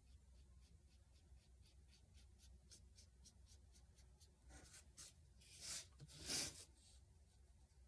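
Round paintbrush laying down short strokes on a painting, faint and brisk at about three strokes a second, with two longer, louder strokes about five and six seconds in.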